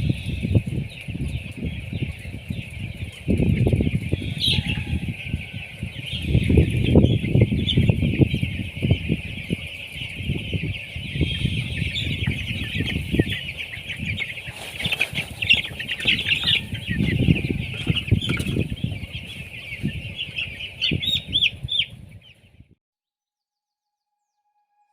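A flock of broiler chickens peeping continuously, over loud, uneven rustling and bumping. Both cut off suddenly about 22 seconds in.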